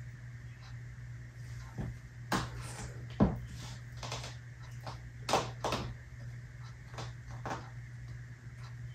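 Clear high-heeled posing shoes tapping and knocking on a hardwood floor as she steps and pivots, in irregular clicks, a few sharper than the rest. A steady low hum sits underneath.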